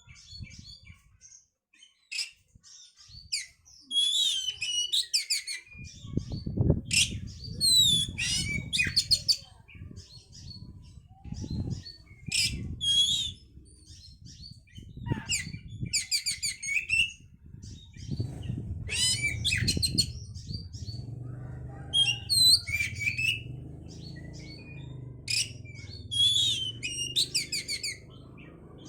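Oriental magpie-robin (kacer) singing in loud, varied bursts of rapid whistles and trills, a new phrase every second or two, in the full-volume fighting style used to rouse other magpie-robins. A low rumble runs underneath from about six seconds in.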